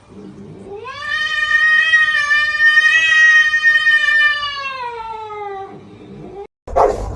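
A cat's long drawn-out meow, rising at the start, held for about five seconds and then falling away. Near the end the sound cuts out abruptly, and a burst of noise follows.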